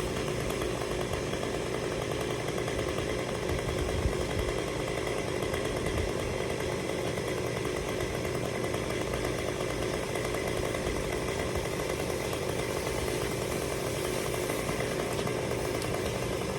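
Two-stroke chainsaw engine running steadily at a constant pitch and level.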